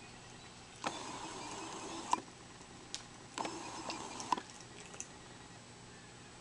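Ring-tailed lemur eating willow leaves: two stretches of leafy rustling and chewing, each about a second long, with a few sharp ticks in between.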